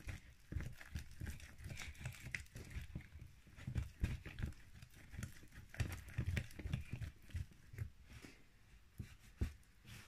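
Homemade slime of shampoo, cornflour and hair gel being mixed: irregular soft thumps and clicks.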